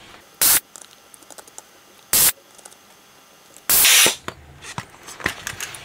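Vacuum desoldering gun sucking molten solder off the legs of the chopper transistors: three short suction hisses, the third about four seconds in and the longest, with a few faint clicks after it.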